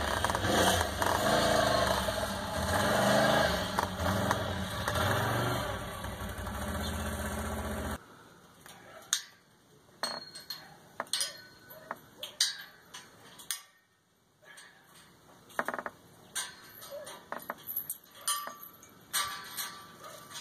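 ATV engine running and revving up and down as the four-wheeler rides through snow; the engine sound stops abruptly about eight seconds in. After that, only faint scattered clicks and knocks.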